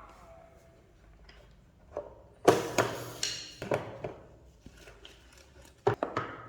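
Hard knocks and clatter of the vacuum cleaner's parts being handled and set down. A loud clack comes about two and a half seconds in, followed by several lighter knocks, then a quick cluster of clicks near the end.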